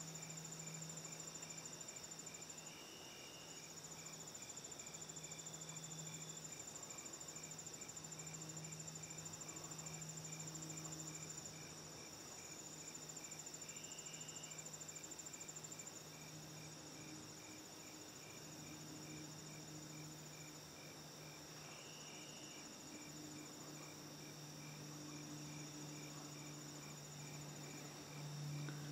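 Field crickets and other insects trilling steadily, with one chirping in an even pulse about three times a second, over a low steady hum.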